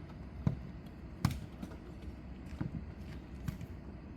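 Jokgu ball being kicked and bouncing in play: two sharp thumps within the first second and a half, then a few softer knocks, over a low background hum.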